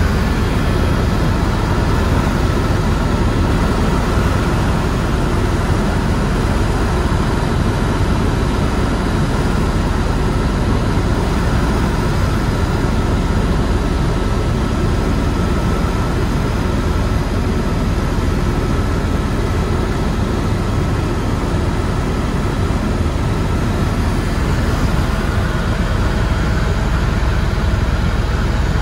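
Helicopter's turbine engine and main rotor running steadily in flight, heard from inside the cabin: a loud, even rushing noise with faint steady whines on top.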